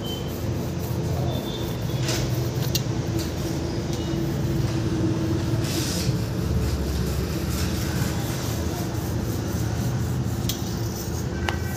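Steady low machine hum with a constant tone, under a few faint scrapes as a long knife slices through a baked sponge cake.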